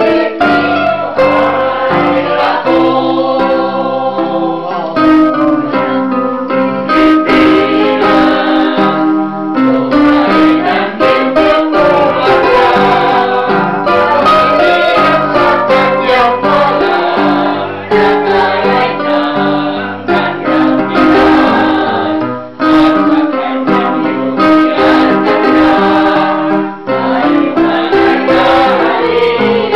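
Small choir of mostly women's voices singing together in unison, accompanied by an electronic keyboard playing chords. The singing runs without a break.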